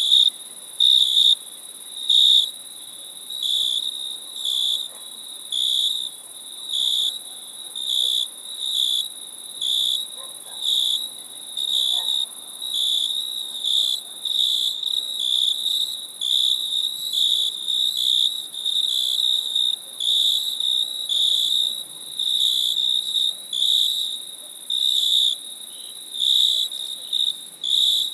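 Crickets chirping: a high chirp repeated evenly about every two-thirds of a second, over a steady, higher-pitched insect trill.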